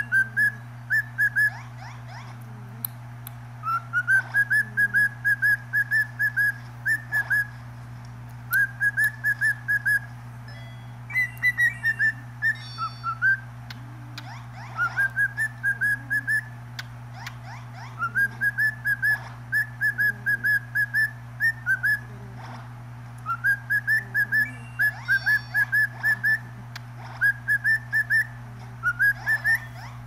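Cockatiel whistling its song: phrases of short, quick whistled notes, each starting with a rising note and then several rapid notes at one pitch, repeated every couple of seconds. One phrase about halfway through has a different, falling shape.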